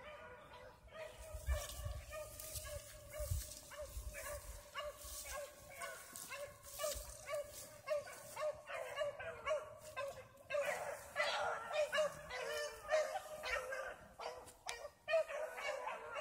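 Dogs barking in a steady run of repeated barks, a couple a second, growing busier and louder about nine seconds in.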